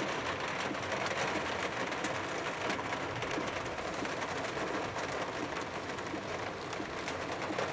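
Heavy rain pelting the car's roof and windshield, heard inside the cabin as a steady patter of countless drops.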